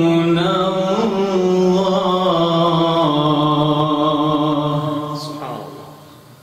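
A man's solo Quran recitation in melodic tajwid style: one long held vowel, ornamented in pitch, that slides down and fades out about five and a half seconds in, closing the phrase.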